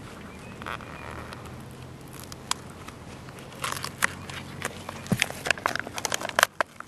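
Paper release backing crackling and crinkling as it is peeled off a sheet of rubberized Grace Ice and Water Shield membrane and worked loose with a knife. There is a dense run of sharp crackles from about halfway in. The backing sticks where the adhesive has oozed into the paper.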